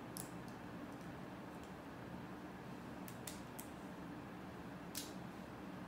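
Plastic Lego bricks clicking as they are handled and pressed together: a few scattered small, sharp clicks, the sharpest about five seconds in, over a steady low hum.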